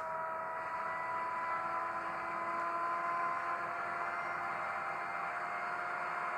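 Sound-decoder recording of an ÖBB 2143 diesel locomotive's Webasto heater, played by an ESU LokSound V5 through an H0 model's small speaker: a steady hiss of fan and burner with a faint hum and a few thin tones drifting slightly lower. The heater is running to warm the diesel engine before it is started.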